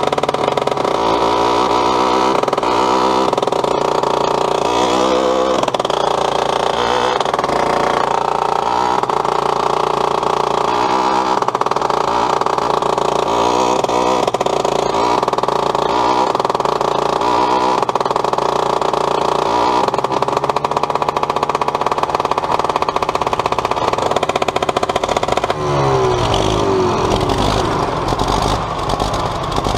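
An old tractor's two-stroke pony starting engine runs at high revs while cranking the main diesel, its note wavering in repeated surges under the load. About 25 seconds in, a deeper engine note joins and falls in pitch.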